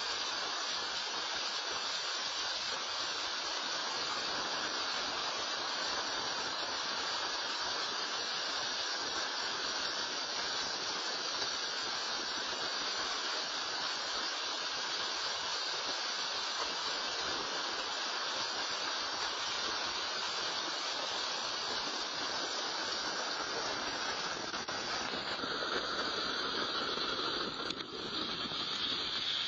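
Steady rushing hiss of a mudslide: wet mud and water pouring down a hillside. A few seconds before the end the sound shifts and briefly drops as mud splatters over the camera.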